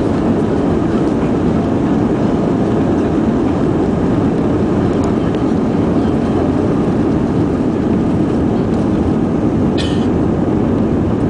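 Cabin noise of an Airbus A320 on its takeoff roll: the engines at takeoff power and the runway rumble make a loud, steady roar. A short higher-pitched sound cuts in briefly about ten seconds in.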